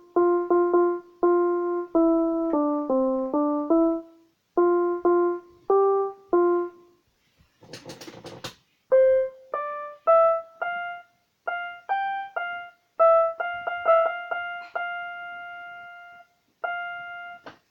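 Casio CTK-100 portable keyboard played one short note at a time, a lower run of notes and then a higher one, as keys are tried out that the owner says make a bad sound even after cleaning. A brief noisy rustle breaks in about eight seconds in.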